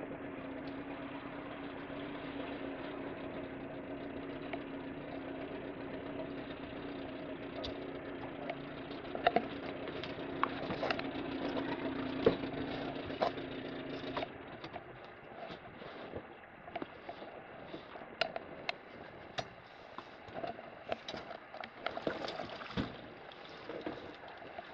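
Pontoon boat's motor idling steadily, then shut off abruptly a little past halfway through. Sharp knocks and clicks come in the second half, with the camera rubbing against clothing near the end.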